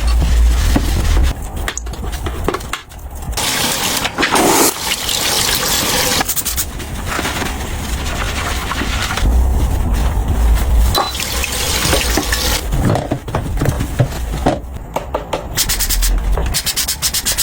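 Water running and splashing, as into a sink during cleaning, breaking off briefly a few times.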